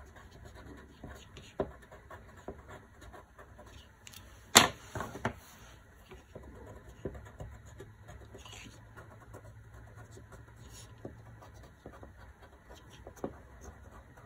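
Watercolor crayon scratching softly on paper in short strokes, with a few sharp taps, the loudest about four and a half seconds in.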